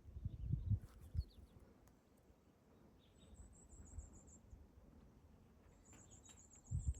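Outdoor ambience with a small bird giving two high, thin trills of rapid short notes, the first about three seconds in and the second near the end. Low rumbling gusts of wind on the microphone come in the first second or so.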